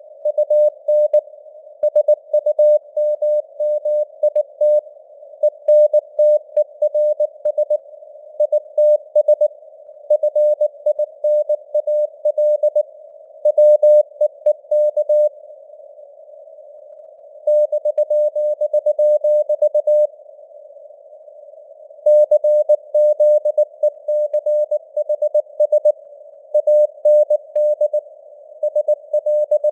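Morse code (CW) sent at 19 words per minute: a single tone near 600 Hz keyed in short dots and longer dashes over a faint band of simulated radio noise. The keying stops twice for about two seconds, in the middle and again a little later.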